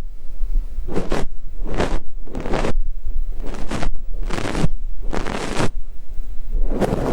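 ASMR ear-cleaning on a binaural microphone ear: a fluffy down ear brush sweeping over the mic, heard as short brushing swishes roughly once a second, turning into a denser, continuous rustle near the end.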